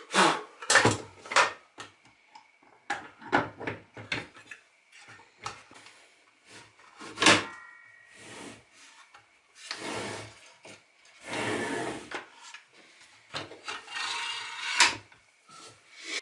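Parts of an Evolution R255 SMS sliding mitre saw being handled and fitted together by hand: the saw head going onto its base and rails. A run of knocks and clicks of plastic and metal parts, the loudest about seven seconds in, with two longer scraping rubs in the second half.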